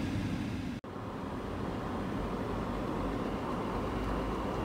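Steady car road noise heard inside the cabin, a low rumbling hiss with no distinct events, broken by a sudden brief gap in the sound just under a second in.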